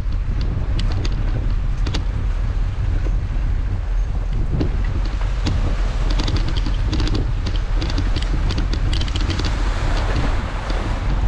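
Wind buffeting a bike-mounted GoPro microphone as a steady low rumble, with irregular light rattling clicks from the bicycle rolling over brick paving.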